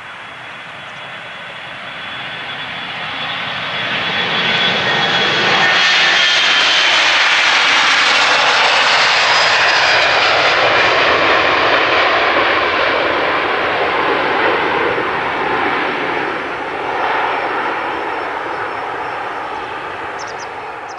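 Boeing 737 Classic's twin CFM56 turbofan engines at takeoff thrust as the jet rolls, lifts off and climbs out. The roar swells over the first few seconds to a loud peak, with a high engine whine that drops slightly in pitch as it passes. It then fades as the aircraft climbs away.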